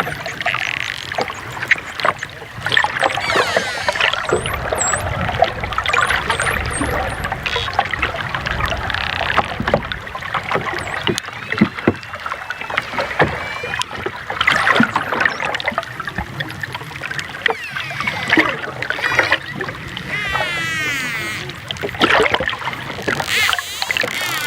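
Dolphins whistling and clicking: quick warbling whistles that rise and fall, short high upward chirps, and scattered sharp clicks over a steady wash of noise.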